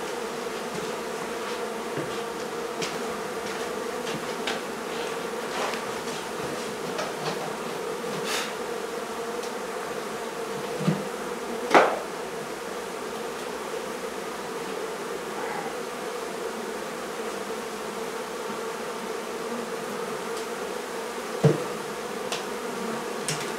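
A mass of honey bees buzzing steadily, a dense continuous hum from the opened colony. A few short knocks sound over it, the loudest about midway and another near the end.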